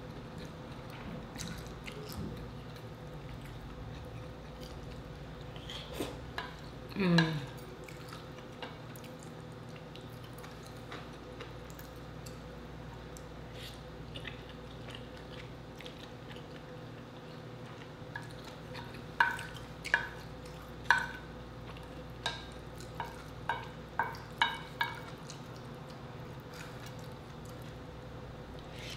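Eating sounds of a person slurping and chewing spicy instant noodles, with scattered clicks and smacks over a steady low hum. The loudest is a short sound falling in pitch about seven seconds in, and a run of about eight sharp smacks comes between about 19 and 25 seconds in.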